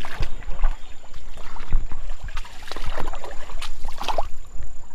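Wading through shallow creek water: irregular splashing and sloshing with each step.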